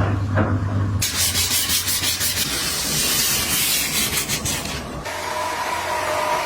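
Steady rubbing noise of something being scrubbed or wiped, in three abruptly cut segments: about a second in it turns brighter and scratchier, and about five seconds in it changes to a duller rub with a faint steady tone.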